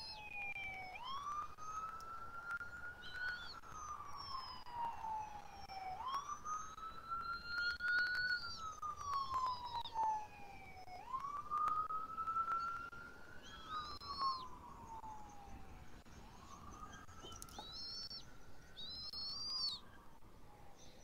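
Siren wailing, its pitch rising and falling slowly in about four long sweeps, the last one fainter. A few short, high chirping calls from a bird come over it.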